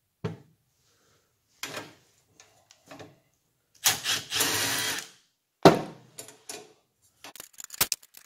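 Milwaukee M18 FUEL cordless drill-driver running in one short spell of about a second, roughly four seconds in, on the steel seat frame. A sharp metal knock, the loudest sound, follows, with scattered knocks before and a run of quick clicks and rattles near the end.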